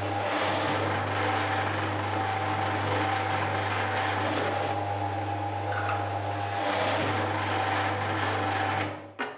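Royal FX finishing planer (super surfacer) running, a steady low hum with a higher whine as it shaves a board. The sound cuts off abruptly near the end.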